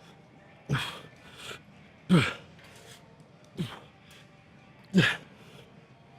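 A man's forceful grunting exhalations, four in all, about one every one and a half seconds, each short and falling in pitch, with a quicker breath between them: straining through the reps of a hard single-leg quad set.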